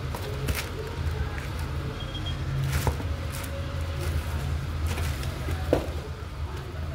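Tissue paper and a cardboard shoebox rustling, with a few short knocks as a sneaker is handled and lifted out of the box, over a steady low rumble.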